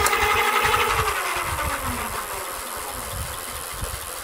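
The Mokwheel Tor Plus e-bike's 750 W rear hub motor spins the raised rear wheel on pedal assist level 4 with a steady whine. About a second in, the whine falls in pitch as the wheel slows, leaving a quieter whirr.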